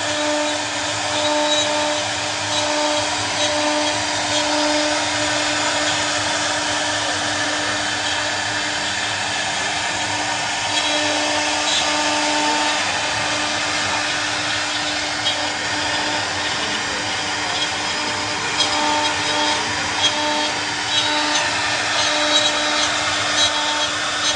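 CNC router spindle running with a steady high whine under a dense hiss of cutting noise, with small sharp ticks in the second half.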